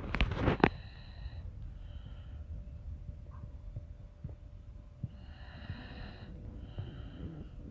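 A sleeping person snoring, several of the breaths carrying a high whistling wheeze. A few loud crackles right at the start.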